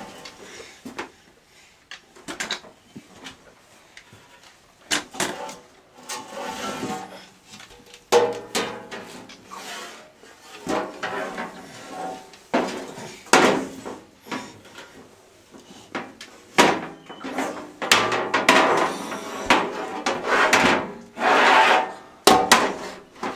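Metal baking pans and an oven's pull-out storage drawer being handled by a baby: irregular knocks, clanks and scrapes.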